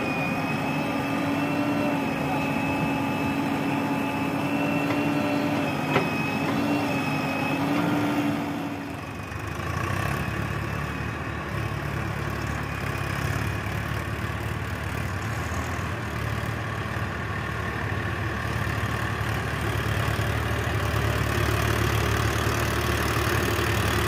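Diesel engines of a tractor and a backhoe loader running steadily. About nine seconds in, the sound shifts to a deeper, even engine hum.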